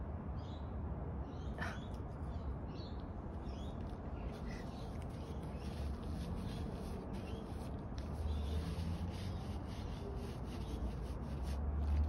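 Tissue rubbing over a small dog's face and fur as its eye is wiped clean, over a steady low rumble.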